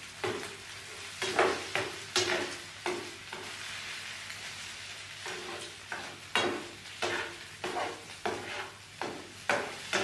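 Rice and scrambled egg frying in oil in a pan, sizzling steadily, while a metal spatula scrapes and knocks against the pan in repeated uneven strokes as the rice is stir-fried.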